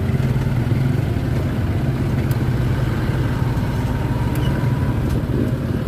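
Street traffic, with a vehicle engine idling steadily as cars drive past.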